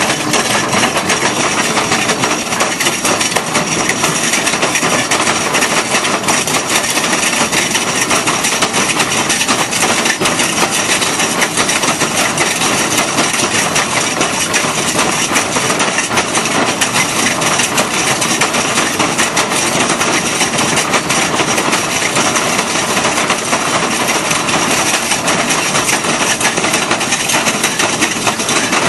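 Excavator-mounted hydraulic drum cutter grinding into cracked rock: a loud, steady, dense crackling clatter of the cutter picks chipping stone, without a break.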